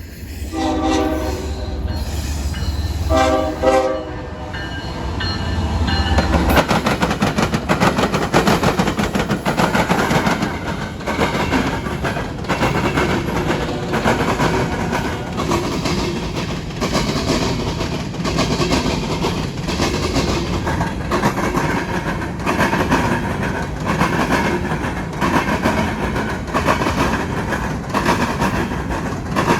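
Norfolk Southern diesel locomotive's horn sounding two chord blasts over the low running of its engine as it passes. From about six seconds in, the covered grain cars roll by with a steady clickety-clack of wheels over the rail joints.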